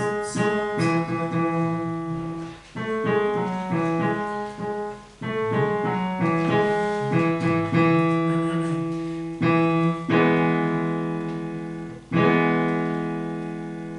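Piano playing short repeated phrases of struck notes, then two full chords about ten and twelve seconds in that are held and slowly fade.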